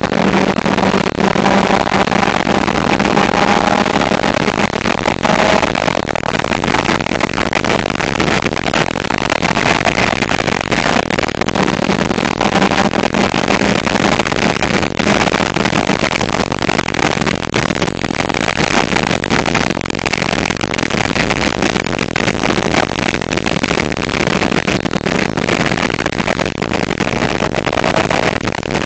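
Suzuki Swift Sport driven on a race track: a steady engine drone buried under a loud, dense rush of wind and road noise. The recording sounds bad and harsh.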